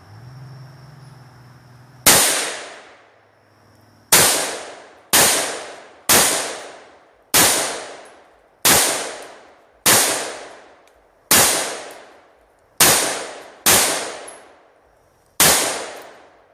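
Bushmaster AR-15 rifle firing 5.56 rounds semi-automatically: eleven loud single shots about a second or so apart, each ringing off in a short echo.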